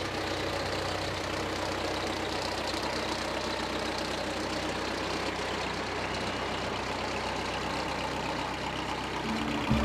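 Manitou telehandler's diesel engine running steadily at a low, even speed while the machine handles a large metal gate panel.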